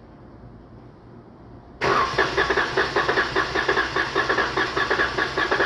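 Starter cranking the 3.6 V6 engine with a spark plug out, for a compression test on cylinder 2. It kicks in suddenly about two seconds in and goes on with an even, rapid pulsing. That cylinder tops out at only about 90 psi, low compression.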